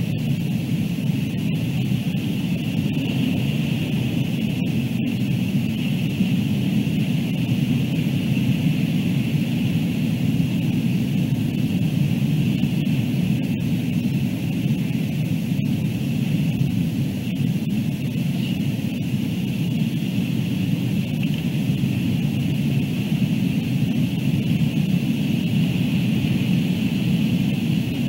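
Steady low rushing wind noise on the outdoor nest-camera microphone, with a constant high hiss and a few very brief dropouts in the sound.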